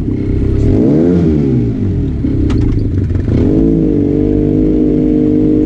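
Arctic Cat Wildcat Trail 700 side-by-side's engine revving up and back down about a second in, then rising again and holding a steady, higher speed from about four seconds.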